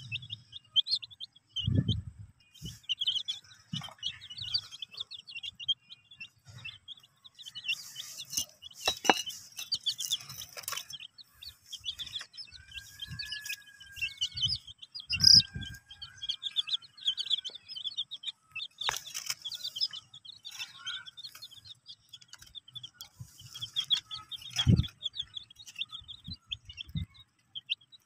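Baby chicks peeping, many quick high peeps overlapping without pause, with scattered knocks and scuffs, the loudest about halfway through.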